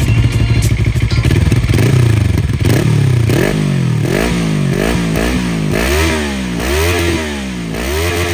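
Moto Morini X-Cape twin-cylinder engine through an aftermarket FF By Fresco Dakar exhaust, idling steadily, then blipped with a quick series of throttle revs, each rising and dropping back, from about two seconds in.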